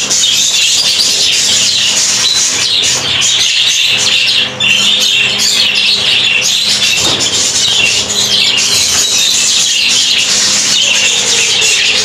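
Many budgerigars chattering together in a dense, unbroken chirping.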